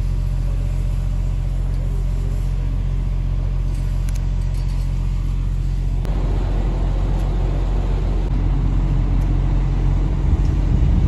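Truck engine idling with a steady low hum; about six seconds in it grows louder and rougher.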